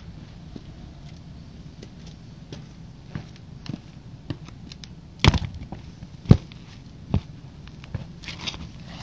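White Nike Air Force 1 sneakers stepping and scuffing on brick paving close to the microphone. Scattered light clicks and taps, with two sharp knocks a second apart a little past the middle.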